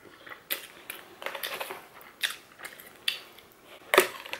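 Eating sounds: chewing chow mein with small mouth clicks, and a metal fork scraping in a foil takeaway tray. A string of short clicks and scrapes, the loudest about four seconds in as the fork digs into the tray.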